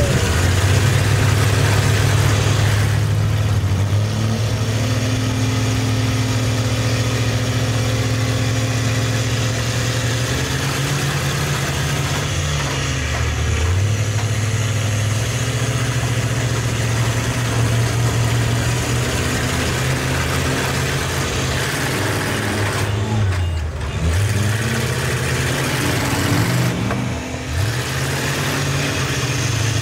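Mega truck engines idling and running, a loud steady drone whose pitch dips and comes back up a few times, around ten seconds in and again near the end.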